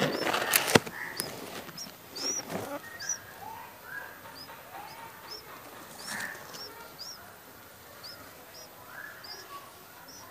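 Red-whiskered bulbul nestlings begging: thin, high, hooked chirps repeated every half second or so, with lower sliding bird calls now and then. A burst of rustling and sharp knocks comes in the first second.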